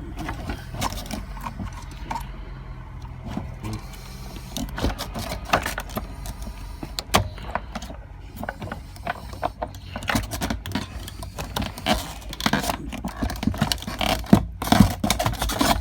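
Irregular clicks, knocks and rattles of a fuel pump assembly being twisted and worked against the mouth of the gas tank while it is still held at the bottom. The knocks are sharper near the end, over a steady low hum.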